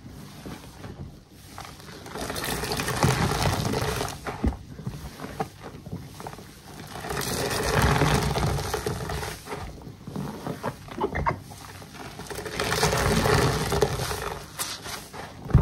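Soapy body sponges squeezed and kneaded by hand in a basin of sudsy water: wet squelching and crackling foam, swelling in three long squeezes, with smaller wet crackles between.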